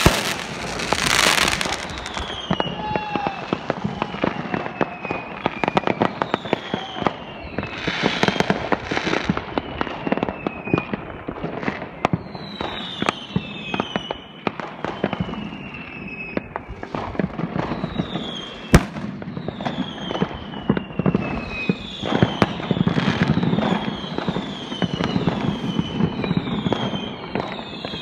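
Many fireworks going off at once: a steady stream of bangs and crackles, with short falling whistles coming more and more often through the second half.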